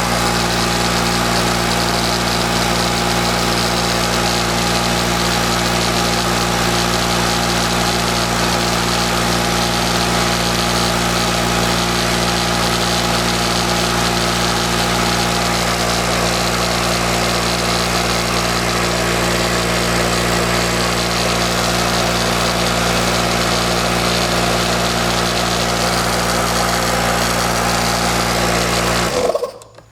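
Hitachi air compressor's motor and pump running loudly and steadily, then shutting off abruptly near the end. This is a test run after a new check valve was fitted, and the compressor still doesn't seem to be working.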